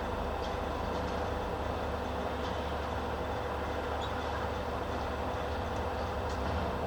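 Steady low rumble of vehicle noise, with an even hum, like distant road or rail traffic.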